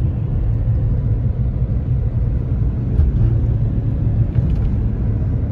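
A car being driven, heard from inside the cabin: a steady low rumble of road and engine noise.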